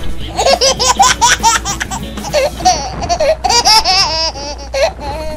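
High-pitched laughter in rapid strings of short 'ha' bursts, coming in a few fits with brief breaks.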